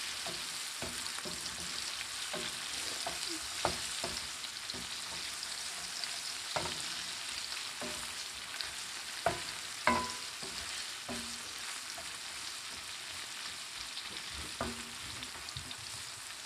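Fishballs frying in hot oil with onion and garlic, a steady sizzle. A spatula knocks and scrapes against the pan every second or two as they are stirred, loudest about nine and ten seconds in.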